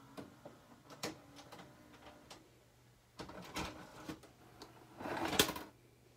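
Sharp VC-H974U VCR's tape mechanism clicking and whirring as playback stops, over a faint steady hum. There are two louder spells of clunking and whirring, about three seconds in and about five seconds in, the second ending in a sharp clack.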